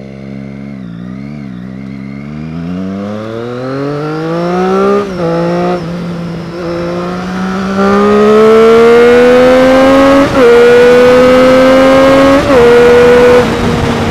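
2013 Triumph Street Triple R's three-cylinder engine accelerating hard through the gears. The pitch climbs and dips briefly at each upshift, about five, ten and twelve seconds in, and the engine is loudest late on before the throttle eases off near the end.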